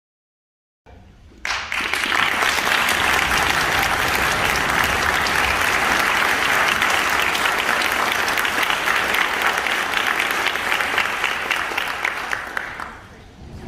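Concert audience applauding. It starts sharply about a second and a half in, holds steady, and dies away near the end.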